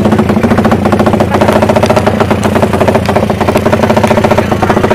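Tuned Honda drag-race motorcycle engine idling loudly and steadily, with a rapid, even firing beat.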